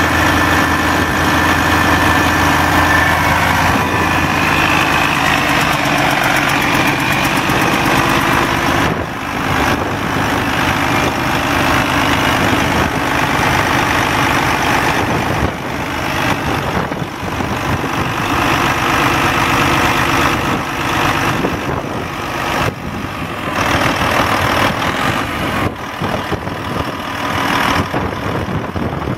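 Detroit Diesel Series 60 12.7-litre inline-six turbo diesel idling steadily, heard close up in the engine bay.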